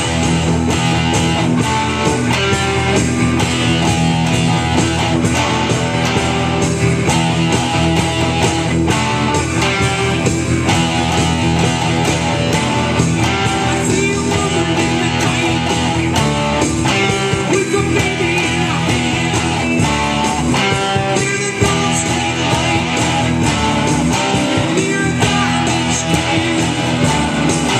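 Epiphone Les Paul electric guitar, amplified, played continuously with picked notes and chords at a steady, loud level.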